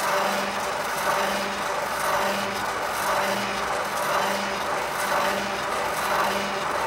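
Stepper and servo motors of a kinetic light machine driving its 3D-printed carriage and mirror ball along a rail. The machine runs steadily over a noisy hiss, with a low tone that pulses about once a second.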